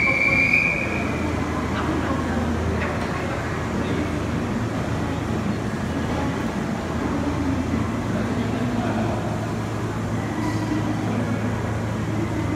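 Kintetsu 50000 series Shimakaze express train at an underground station platform: a steady low hum from the train, with a brief high squeal right at the start.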